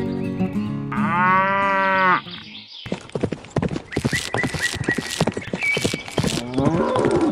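A cow mooing over background music, one long moo about a second in that falls in pitch at its end. From about three seconds comes a rapid clatter of sharp knocks, and near the end a shorter wavering moo.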